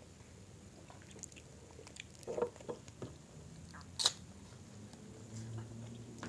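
Faint chewing and mouth sounds of people eating grilled chicken with their fingers, with scattered small clicks and lip smacks. A sharp click about four seconds in is the loudest sound.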